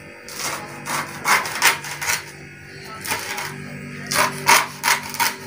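Kitchen knife cutting through a bunch of green leaves against a plastic tray: a run of short, irregular scraping cuts, about two a second.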